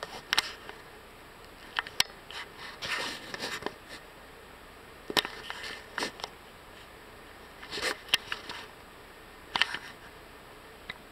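Scattered sharp clicks and short scuffs from a large dog's claws and paws on wooden dock boards as it moves along the edge.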